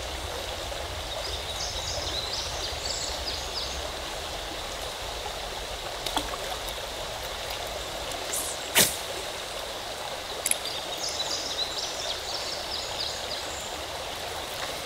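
Shallow river water running steadily over a riffle, with two spells of short high chirps and a single sharp click about nine seconds in.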